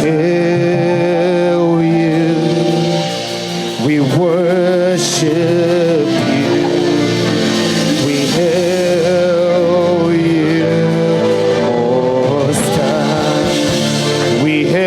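Live gospel music from a choir and band: long held notes that waver slightly in pitch, with a brief dip in loudness about three seconds in.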